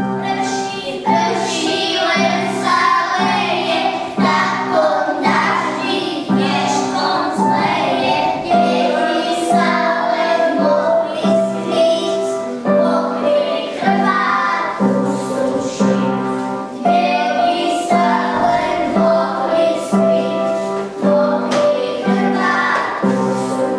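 A children's song with a steady beat: children's voices singing a melody over instrumental accompaniment.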